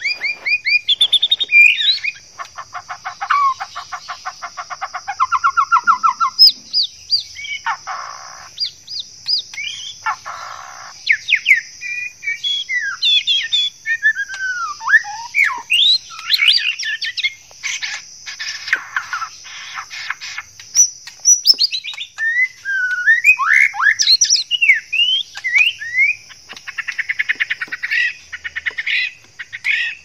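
Male white-rumped shama singing the courtship song of a bird in breeding condition: a varied run of sweeping whistles, rapid trills and buzzy notes, with short pauses between phrases.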